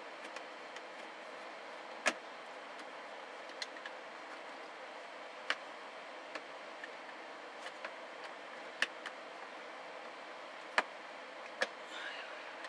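About ten sharp clicks and knocks at irregular times, the loudest about two seconds in and near the end, from fastening a speaker into the plastic roof lining of a telehandler cab with a screwdriver. Over a steady low hiss.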